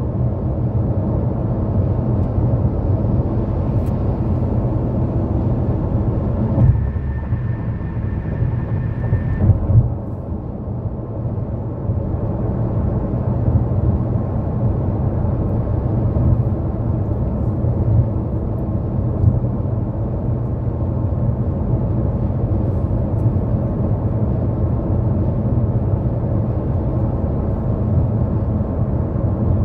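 A car driving at highway speed on an interstate: steady low tyre and road rumble with engine noise. The rumble shifts near a third of the way in, and a thin steady high tone sounds for about three seconds alongside it.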